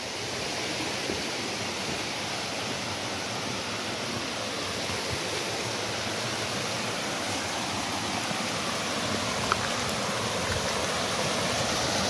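Steady rush of a shallow mountain stream cascading over smooth rock slabs, growing a little louder toward the end.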